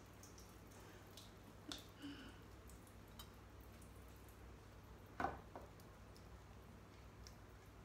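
A few faint clicks and taps over a low steady hum, the sharpest about five seconds in: metal rotisserie spit and skewers being handled and fitted together.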